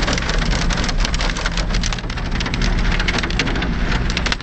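4x4 driving over a rough dirt track, heard from inside: a low, steady engine hum under a dense, continuous crackle of clicks and rattles.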